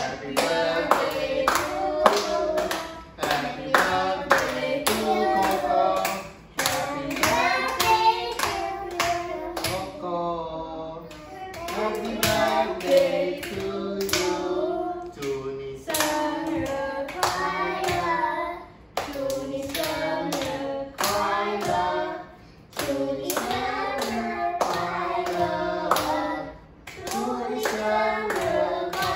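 A family of adults and children singing a birthday song together, clapping along in time.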